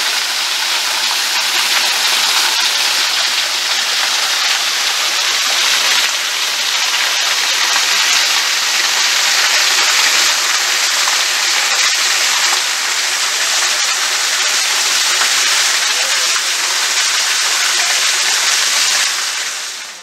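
Small waterfall splashing into a rock pool: a steady, loud rush of falling water that cuts off suddenly near the end.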